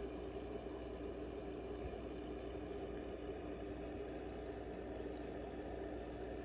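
Steady machine hum with a couple of held tones and a faint hiss, unchanging throughout.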